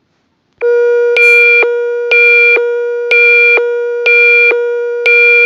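Electronic emergency alert tone announcing a new weather alert. A steady low tone starts about half a second in, and a higher beep sounds over it about once a second, five times.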